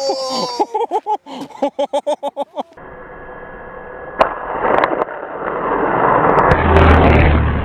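Rushing noise with a low rumble that builds steadily and peaks near the end, as an RC plane dives close past the microphone. It is preceded by a quick run of short, repeated pitched pulses.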